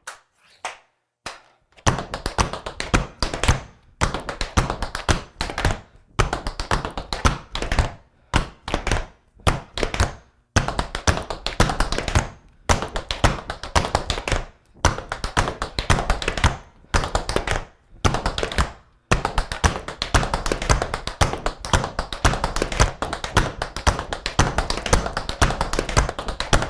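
Tap shoes dancing on a wooden floor: a few single taps, then long, fast runs of taps in a shuffle drill, broken by short pauses.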